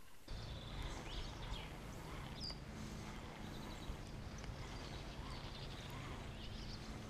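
Outdoor ambience by open water: a steady low rumble of wind on the microphone, with a few faint high bird chirps.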